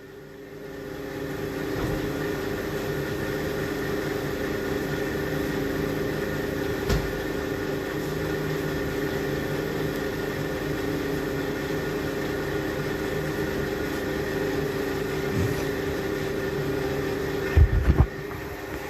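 Steady electric motor hum from a kitchen appliance, holding several fixed tones, with a light click about seven seconds in and a couple of knocks near the end.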